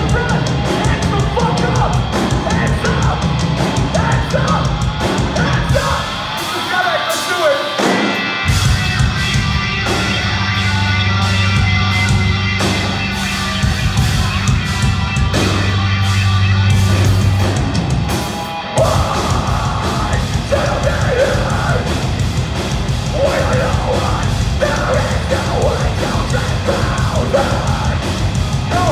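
Metalcore band playing live, recorded from the crowd: heavy guitars, bass, drums and vocals. About six seconds in the low end drops out briefly, then low chords ring out held for several seconds before the full band comes back in with vocals around nineteen seconds.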